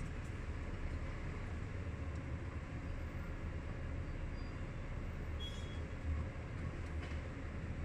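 Inside the cab of a Scania R380 truck on the move: the steady low drone of its inline-six diesel under road and cab noise. A brief high chirp comes about five and a half seconds in.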